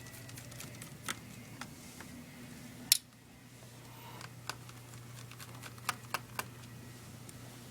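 Small screwdriver taking out the screen-bezel screws of a Sony VAIO VPCEL laptop: scattered small clicks and ticks, the sharpest about three seconds in, over a low steady hum.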